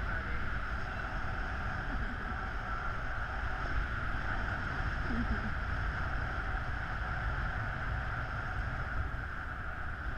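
Steady rush of air from the paraglider's flight buffeting the camera microphone, with a low rumble under it.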